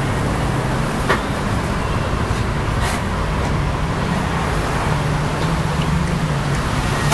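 Steady road traffic noise, a dense rumble with most of its weight low down, with a short light click about a second in.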